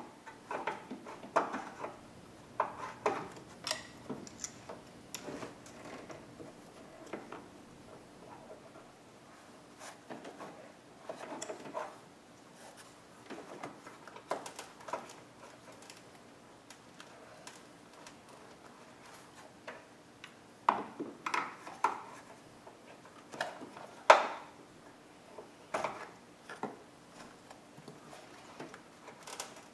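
Scattered clicks, taps and scrapes of a screwdriver and pliers prying at a push-in plug in a car's engine bay, with a few sharper knocks about two-thirds of the way through.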